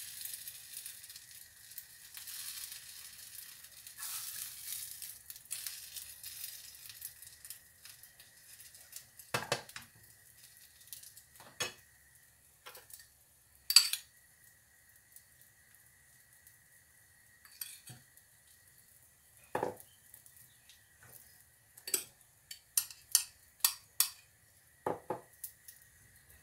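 An omelette sizzling in a frying pan, fading out over the first several seconds. Then separate sharp clinks and taps of a metal fork and spoon against a bowl and the pan as mushrooms are spooned onto the omelette, the loudest about halfway through and a quick run of taps near the end.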